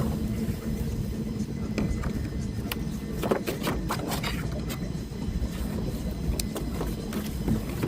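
Small motorboat's outboard motor running steadily with a constant low hum, with a few light knocks about three to four seconds in.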